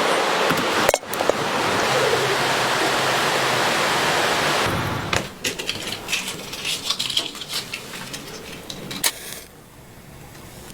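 Steady rushing of a mountain stream for about the first five seconds, then quieter scattered light clicks and knocks of cooking gear being handled.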